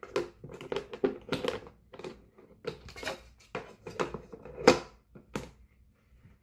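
Hard plastic lunch box being handled: a quick run of clicks and knocks as the cutlery is slotted into the lid and the lid is pressed and latched, with one sharper snap about three-quarters of the way through.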